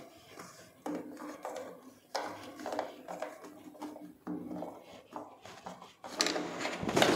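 Plastic knocking and scraping as a PVC bottle trap's coupler nut and rubber washer are worked back into place and hand-tightened, with a few sudden knocks and louder scraping near the end.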